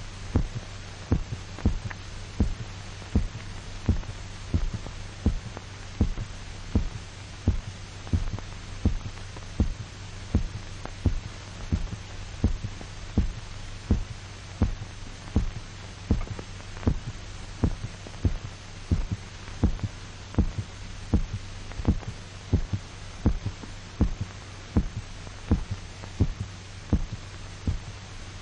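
A dog's heartbeat, amplified: evenly paced double thumps, about one a second, while the anaesthetized dog is bled out through its carotid artery. A steady low hum sits underneath.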